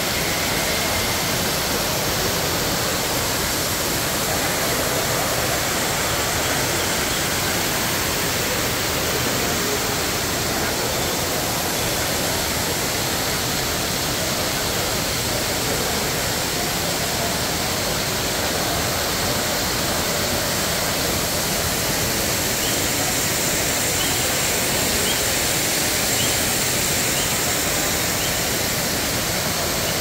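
Steady, even rush of falling water from a fountain or water feature.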